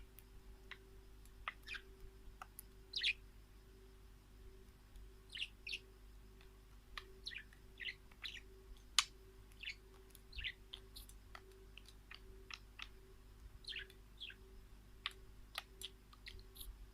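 Small wild birds chirping: many short, sharp calls, one or two every second, over a faint steady low hum.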